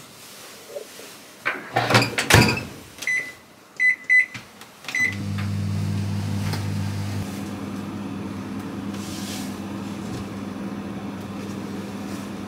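A kitchen oven's door closing with a couple of clunks, a series of short keypad beeps as it is set, then the oven starting up with a steady low hum that is a little louder for its first two seconds: the tart going in to bake.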